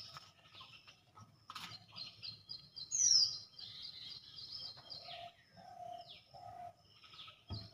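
Several birds chirping and calling in overlapping short high notes. A loud whistle slides downward about three seconds in, and three short lower notes follow near the end.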